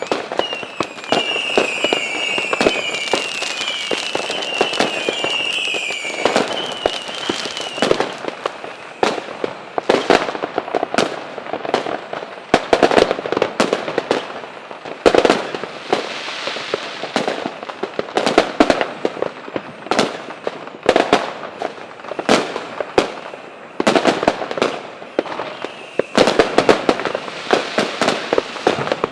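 Fireworks going off: a dense, irregular run of bangs and crackles, with a wavering whistle during roughly the first eight seconds.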